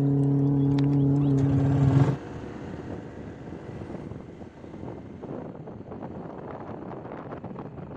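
A steady engine hum for about two seconds that stops abruptly. Then wind buffeting the microphone with road noise from a moving vehicle.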